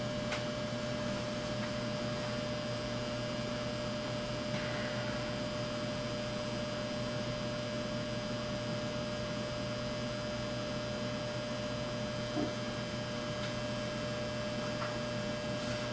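Steady electrical mains hum from powered electronics, with a thin steady whine above it.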